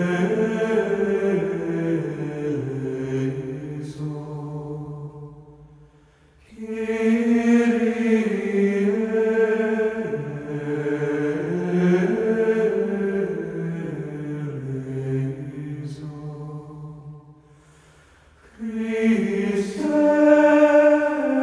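Chanted vocal music: slow, sustained sung phrases, broken by two short pauses about six and seventeen seconds in.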